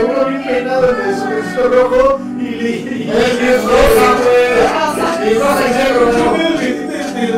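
Music: a song with male singing voices over accompaniment, growing fuller and louder about three seconds in.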